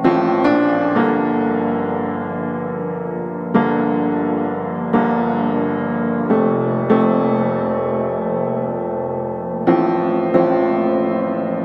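Background piano music: chords struck one after another at an unhurried pace, each left to ring and fade.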